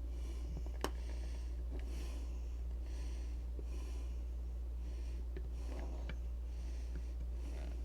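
A person's heavy breathing close to the microphone, regular breaths about once a second, over a steady low hum. One sharp click about a second in.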